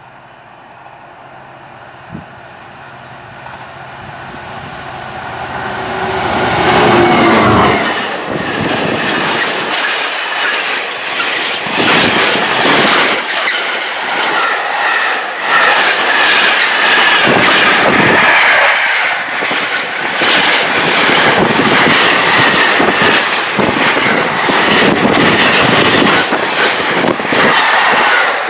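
GBRf Class 66 diesel locomotive, its two-stroke V12 engine growing louder as it approaches and passes about seven seconds in. Its container wagons then roll by with rhythmic wheel clatter over the rail joints and a steady high squeal from the wheels.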